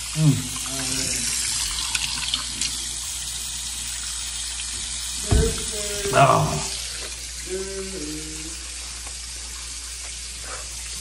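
Bathroom faucet running steadily into a plastic jug, a continuous hiss of water, with a single thump about five seconds in.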